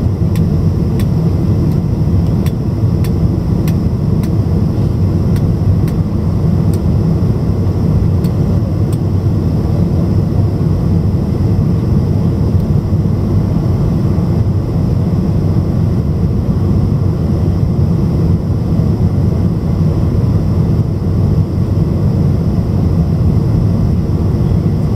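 Steady low cabin roar of a Boeing 747's four jet engines and the airflow, heard from inside the passenger cabin on final approach.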